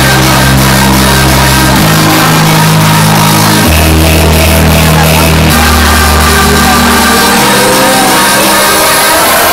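Loud electronic dance music over a nightclub sound system: long held bass notes that change about every two seconds, with a rising sweep building near the end.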